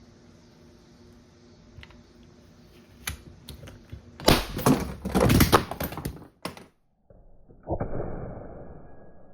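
Metal clicks and rattles of a Ramset powder-actuated nail gun being handled and loaded with a fresh charge, a quick run of sharp clicks about four seconds in. Near the end comes a duller burst of noise that fades away over a second or two.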